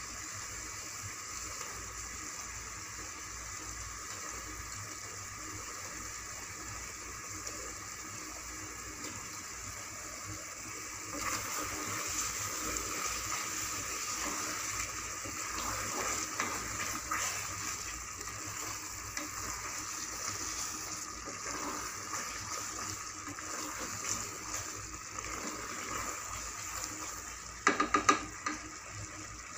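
Masala sizzling in an aluminium pressure cooker on the gas stove as boiled eggs are stirred in, a steady hiss that grows a little louder partway through. Near the end a wooden spoon knocks a few times against the pot.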